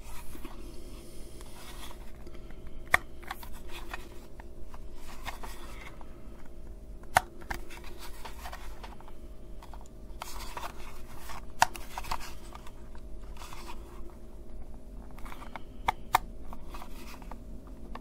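Hands handling a plastic remote control, with rubbing and rustling throughout and a handful of sharp, spaced-out clicks.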